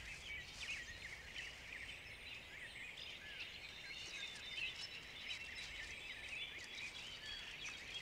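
Faint cloud-forest ambience: many small high-pitched bird chirps and short whistled calls overlapping without a break, over a low even hiss.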